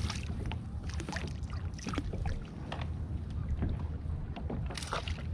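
Wind rumbling on the microphone, with water splashing and lapping against a fishing kayak's hull and scattered sharp clicks and knocks, the loudest near the end.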